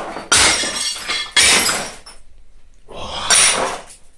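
A sledgehammer smashing the remaining pieces of a teapot: three crashes, each trailed by shards scattering and rattling.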